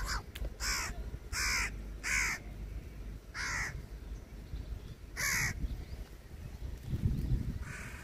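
House crows cawing, about six separate harsh caws spread over the first five seconds, over a steady low rumble. A louder low rumble comes near the end.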